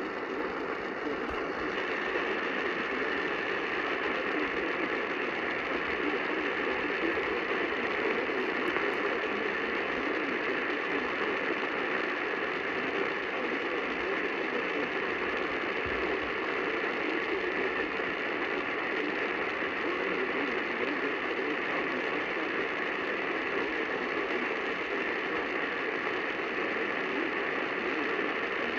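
Steady AM radio static and hiss on 700 kHz, with a weak, barely-coming-in signal that is relaying a tornado warning.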